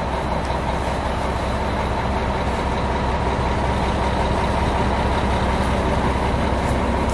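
A motor vehicle's engine running steadily, a continuous low drone that holds an even level.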